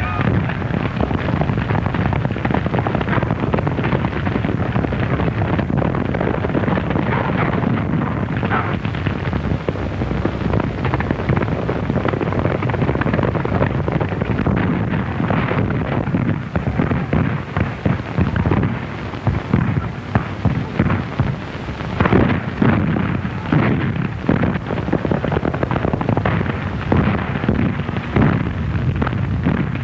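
Battle sound effects on an early sound-film soundtrack: a continuous din of gunfire and blasts, breaking up into more separate sharp cracks about halfway through.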